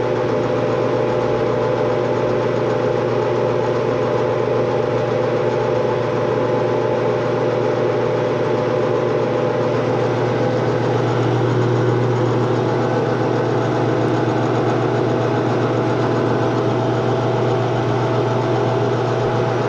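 Metal lathe running steadily, its spindle turning a hardened steel axle while a carbide insert cuts the old splines down. The lathe gives an even, unbroken machine hum.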